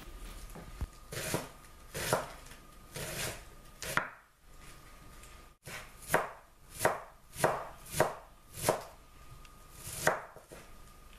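Kitchen knife chopping shredded iceberg lettuce on a wooden cutting board: a series of crisp strokes, one or two a second, with a short pause about halfway through.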